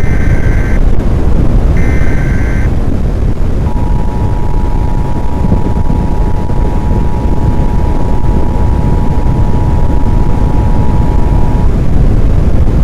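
Weather radio emergency alert: two short buzzing data bursts about a second apart, then the steady two-note attention tone held for about eight seconds, the signal that a warning message is about to be read. A loud low rumble runs underneath.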